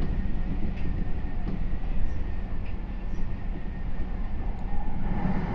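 Meitetsu 3500 series electric train running, heard from inside the car: a steady low rumble with a thin, high steady whine and a few faint clicks. A louder mid-pitched sound rises near the end.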